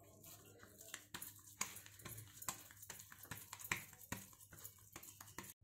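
Hands rolling and patting spiced mashed-potato tikki mixture into a ball: faint, irregular soft taps and clicks, several a second, the sharpest about one and a half and three and a half seconds in.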